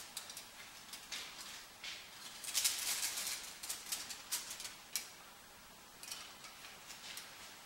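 Aluminium foil being crinkled and handled, a scatter of irregular crackles and rustles, busiest for a second or so in the middle.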